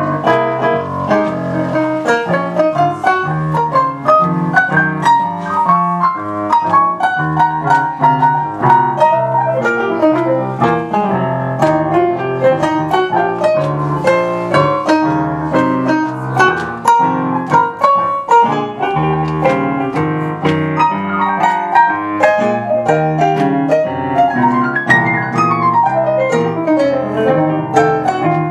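Digital keyboard playing an instrumental solo in a jazz standard: a stream of quick melody notes over chords in the lower register, with no voice.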